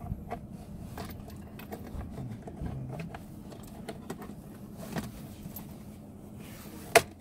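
Hands working at a cabin air filter housing under a Hyundai Galloper's dashboard: small scattered plastic clicks and knocks, with one loud sharp click near the end.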